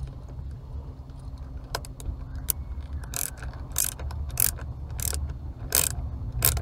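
Screwdriver ratchet clicking as a shortened self-tapping screw is driven into the cruise-control switch mount behind the steering wheel. The sharp clicks come about three every two seconds, starting about two seconds in.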